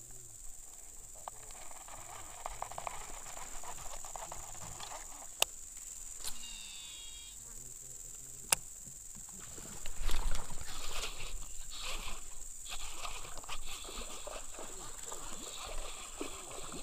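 Steady high-pitched drone of insects, with two sharp clicks and a louder rustle of handling about ten seconds in.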